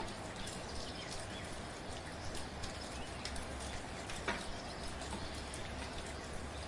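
Steady soft rain, a constant hiss with scattered individual drops ticking through it; one drop lands more sharply about four seconds in.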